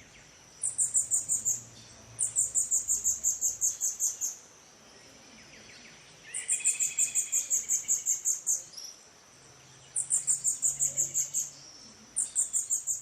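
A small songbird singing: five phrases of rapid, high-pitched chirps, each phrase a run of quick notes lasting one to two seconds, with short pauses between them.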